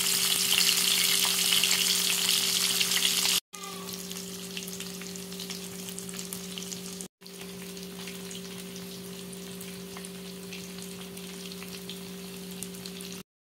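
Whole fish shallow-frying in oil on a cast-iron tawa: a steady sizzle with fine crackles. Loud for the first three seconds or so, it drops to a quieter sizzle after a short break, with a steady low hum underneath, and cuts off suddenly near the end.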